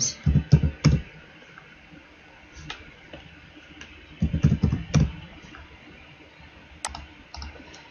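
Computer keyboard being typed in two short runs, one at the start and one about four seconds in, with a few single clicks between.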